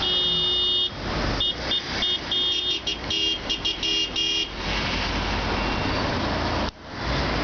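Car horns honking in protest: one long blast, then a run of short rhythmic toots from more than one horn, over street traffic noise. The honking stops about halfway through, leaving only the traffic noise.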